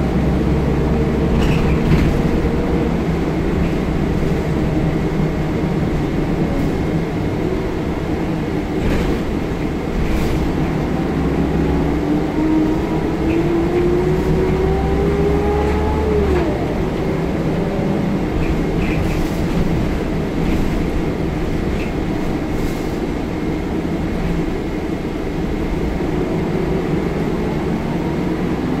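Inside a 2004 Scania L94UB / Wright Solar single-deck bus under way: steady diesel engine hum and road noise. About halfway through, a whine rises as the bus accelerates and cuts off suddenly at a gear change, and another climb begins near the end. A few short knocks and rattles come from the body.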